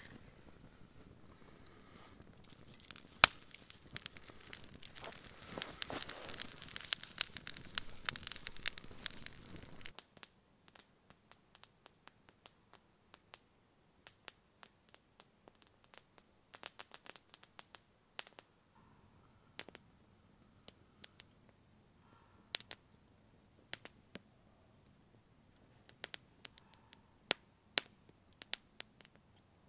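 Wood campfire crackling densely, with one sharp loud pop about three seconds in; after about ten seconds it thins to scattered single pops and snaps.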